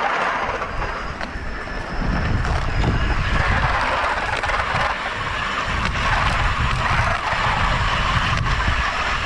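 Zipline trolley running along the steel cable, a steady rolling whir with wind buffeting the microphone in an uneven low rumble.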